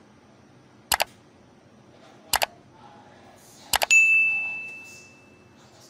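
Subscribe-button overlay sound effect: three crisp double mouse clicks about a second and a half apart, then a bell-like notification ding that rings out and fades over about a second and a half.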